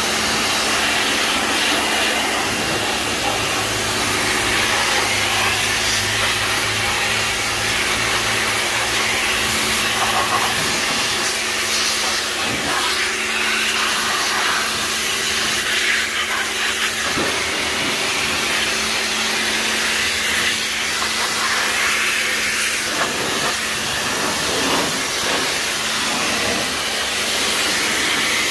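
Pressure washer (jet wash) running steadily, its water jet spraying onto the engine and engine-bay metal to blast off grime. A loud, even hiss with a constant motor hum underneath.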